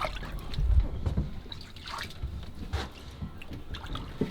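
Water dripping and trickling, with a low rumble underneath.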